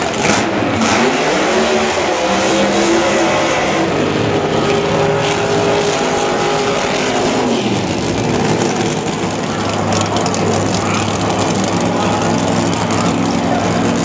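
Drag racing car engines at full throttle. The pitch climbs about a second in, holds high, then drops away near eight seconds, leaving a steadier, lower engine note.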